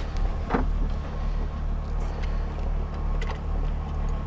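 Steady low mechanical hum from the 2005 Chrysler Crossfire Roadster while its hydraulic convertible top is being worked, with one sharp click about half a second in and a few faint ticks later.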